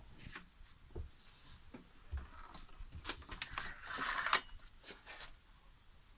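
Scattered light clicks and knocks with rustling, and a louder scraping rustle about four seconds in: objects being handled at close range.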